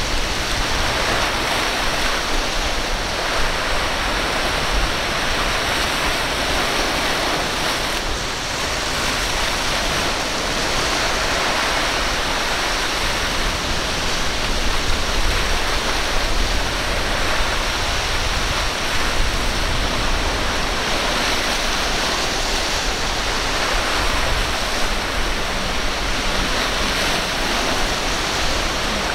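Rough surf: waves breaking and churning in choppy sea, a steady, loud rush of water.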